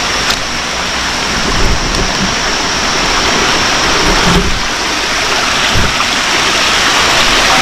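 Rushing river water, a steady loud wash of noise that grows a little louder toward the end.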